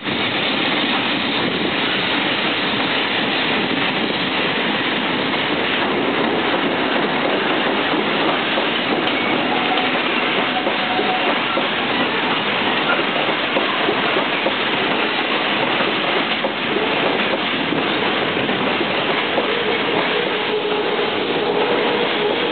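Freight train's container wagons rolling past close by: a steady, continuous rumble and rattle of steel wheels on rail. A faint held tone rises out of it near the end.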